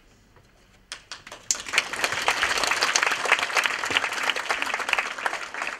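Audience applause: a few scattered claps about a second in, then the crowd breaks into full, dense clapping that begins to thin near the end.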